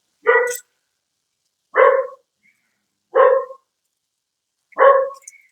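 A dog barking four times, about a second and a half apart.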